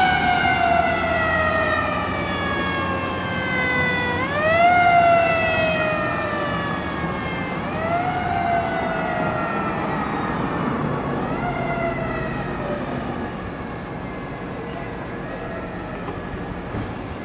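Siren of a 1995 KME fire engine, repeatedly winding up quickly and gliding slowly back down, about every three and a half seconds. It grows fainter as the engine drives away, with a low traffic and engine rumble beneath.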